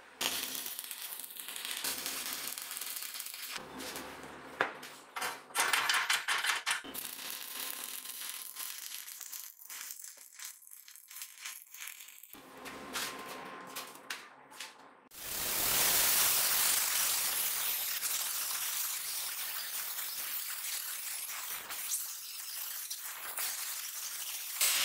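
Workshop sounds: scattered clinks and knocks of metal parts being handled. About fifteen seconds in, a steady rasping noise starts, like a tool sawing or rubbing.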